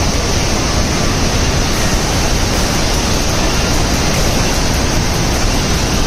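Large waterfall: a loud, steady rush of falling and churning water.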